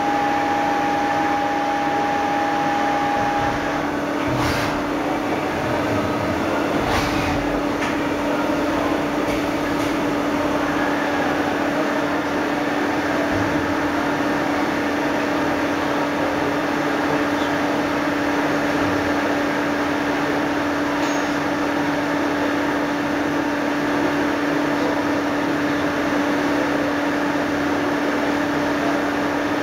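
CNC turning and milling machine running, a steady hum with a constant tone over a hiss of machining. A higher whine stops about three and a half seconds in, and there are two brief knocks a few seconds later.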